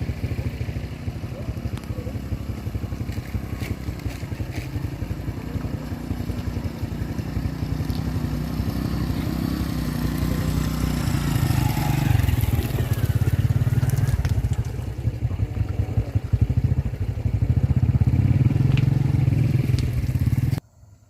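Truck's diesel engine labouring hard on a steep climb, growing louder about halfway through as it is pushed harder. The sound cuts off abruptly shortly before the end.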